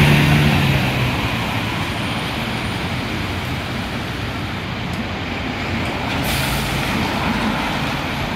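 A city bus's diesel engine pulling away, fading over the first second into steady traffic noise with tyres hissing on a wet road. A short hiss comes about six seconds in, and a bus engine grows louder near the end as another bus draws up.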